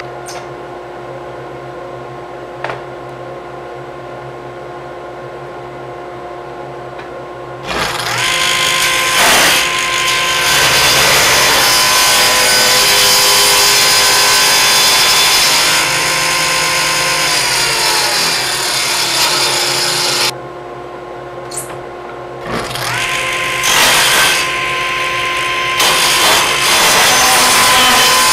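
Table saw running and cutting a slot into a wooden board in repeated passes. A steady motor hum for the first several seconds, then the much louder sound of the blade cutting the wood from about eight seconds in to about twenty. The saw drops back to its running hum briefly, and a second cut starts around twenty-two seconds.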